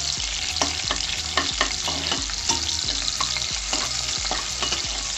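Sliced onion and green chilli sizzling in hot oil and ghee in a metal pan, with a steady frying hiss and a spoon clicking and scraping against the pan again and again as it stirs.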